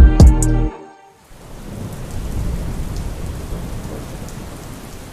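Pop song's beat and bass cut off abruptly under a second in. Then a rain soundscape with rumbling thunder fades in and slowly dies away.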